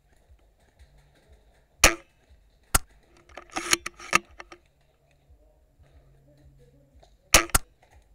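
Sharp snaps and clacks of airsoft gun fire: two single shots about a second apart, a quick cluster of clacks a little later, and two more snaps in quick succession near the end.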